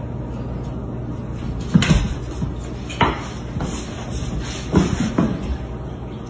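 A dog and a kitten playing on a wooden floor: four or so dull thumps and knocks from the dog's body and paws against the boards, over a steady low hum.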